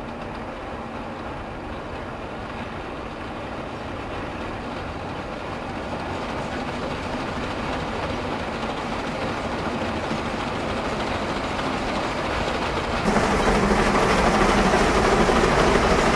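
Narrow-gauge steam locomotive working a train of clay wagons, its running and the wagons' rattle growing steadily louder as it approaches, then jumping louder about thirteen seconds in.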